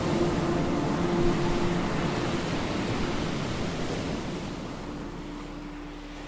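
Ocean surf: a steady wash of breaking waves, fading gradually through the second half.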